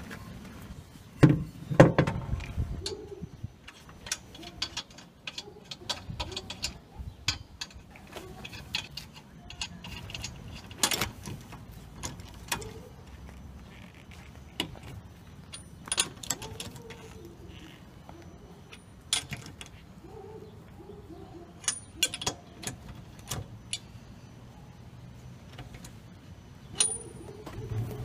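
Irregular sharp metal clicks and clinks from a long-handled wrench and socket on the lug nuts as the wheel's lug nuts are tightened, the loudest about a second and two seconds in.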